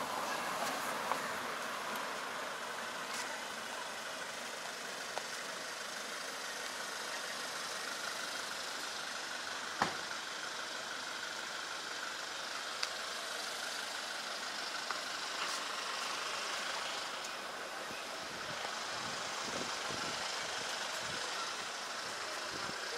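Street ambience dominated by a motor vehicle's engine running steadily nearby, with a single sharp click about ten seconds in and a few fainter ticks.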